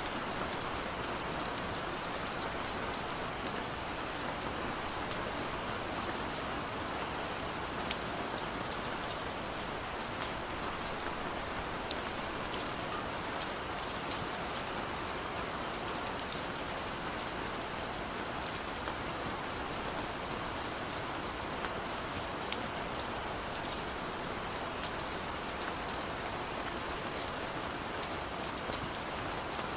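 Steady gentle rain falling, a constant even hiss with many small drop ticks scattered through it.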